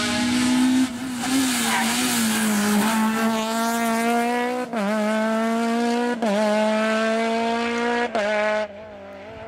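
Citroën Saxo Kit-Car rally car at full throttle, accelerating away, its engine note climbing through the gears with a brief cut at each upshift, four in all. Near the end the engine note drops off sharply as the driver lifts.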